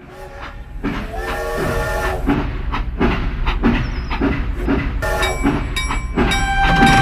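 Mini train running with a rhythmic chugging of about two to three beats a second, its horn sounding a chord about a second in and a long held note near the end.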